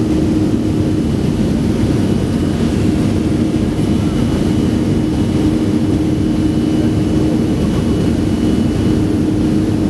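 Boeing 737-500's CFM56-3 turbofan engines at takeoff thrust in the initial climb, heard from inside the passenger cabin: a steady, loud low rumble with a constant hum, and a faint high whine that comes in about four seconds in.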